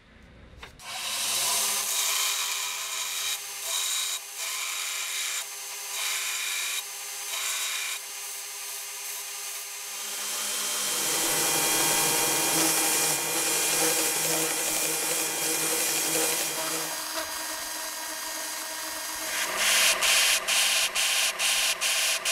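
Belt grinder running, grinding the rusty steel head of an old ball peen hammer against the belt. The machine's tone changes about ten seconds in. Near the end the grinding pulses about two to three times a second.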